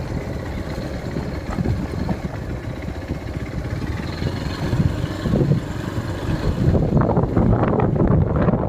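Vehicle running on a rough off-road track, a low rumble with wind buffeting the microphone; it gets louder and rougher about seven seconds in.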